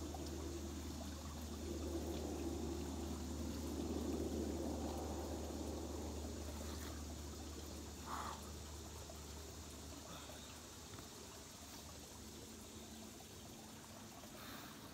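Cold spring water being scooped up by hand and splashed and poured over a person's body to wash, with water running off and trickling; the splashing is strongest in the first several seconds and dies away after about seven seconds.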